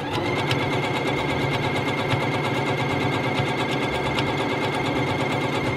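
Pfaff Quilt Ambition 2.0 sewing machine running at a steady speed, stitching a straight seam: a rapid, even ticking of the needle over a steady motor whine.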